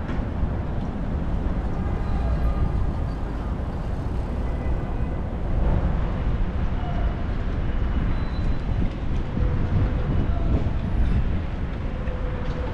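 Steady city street noise: a deep, continuous rumble of avenue traffic with a few faint distant sounds over it.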